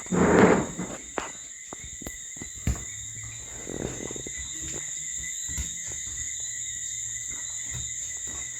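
A chorus of night insects trilling steadily at several high pitches. A short rustling noise comes near the start, another about four seconds in, and a few soft knocks come between them.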